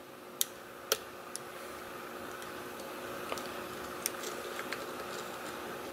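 Lock pick working the pins of a Defiant pin-tumbler lock under tension: a faint continuous scratching with several sharp little clicks spread through it. The lock is full of security pins, at least one or two of them serrated, which give a crunchy feel.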